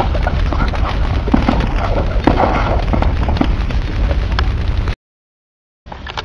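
Fire and explosion sound effect: a steady burning noise full of crackles and pops over a low rumble, cutting off abruptly about five seconds in, followed by about a second of silence.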